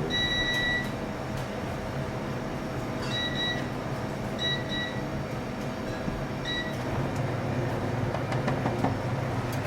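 Steady mechanical hum of kitchen machinery, with short high electronic beeps repeating four times, the first about half a second long.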